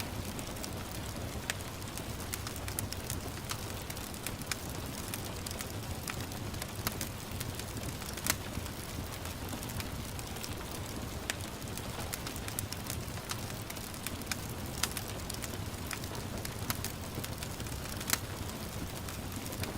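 Wood fire crackling with sharp, irregular pops over a steady low hiss of gentle rain.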